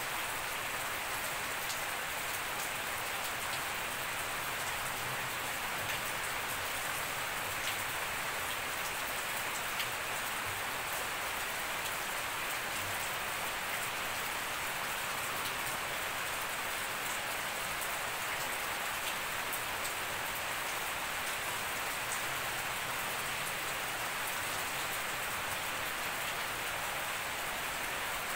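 Steady rain falling on a grassy lawn, leaves and puddles: an even hiss with scattered close drops ticking.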